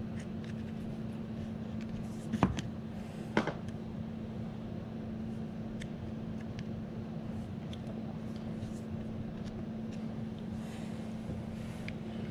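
Handling noise from a plastic dishwasher wash motor/circulation pump assembly being turned in the hands: two sharp clicks about a second apart, a few faint ticks, over a steady low hum.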